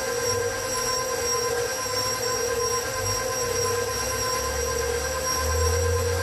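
KitchenAid stand mixer running steadily, its motor giving a constant whine over a low hum as the flat beater turns through thick carrot cake batter in the steel bowl.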